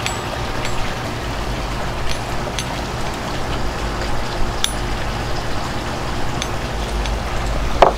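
Silicone basting brush dabbing barbecue sauce onto smoked chickens on a metal sheet pan, with a few light clicks and taps spread through, over a steady low hum.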